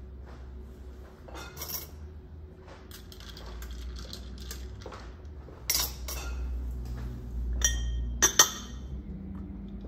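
Long bar spoon stirring ice in a tall Collins glass, with ice and metal clinking against the glass over a steady low hum. Near the end come a few sharper, louder clinks as the spoon is set back among other spoons in a glass holder.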